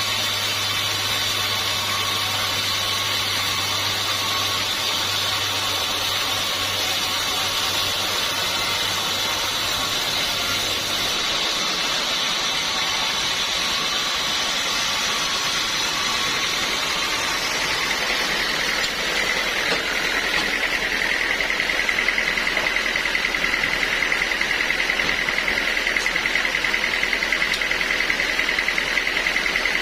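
Sawmill saw running steadily as teak is sawn. About 19 s in, a steady higher whine comes in and the sound grows a little louder.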